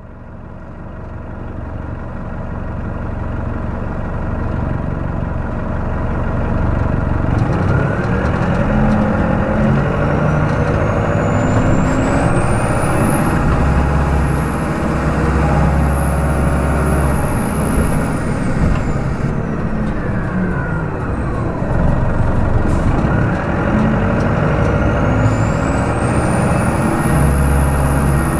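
Detroit Diesel Series 50 8.5-litre diesel engine of a New Flyer D40LF bus, heard up close as the bus drives, fading in at the start. A high whine climbs over several seconds, holds, and falls away about eighteen seconds in. It then climbs again near the end as the bus pulls away once more.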